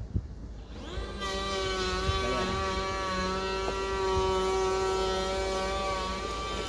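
A motor-driven power tool spins up about a second in, rising in pitch, then runs at a steady high speed.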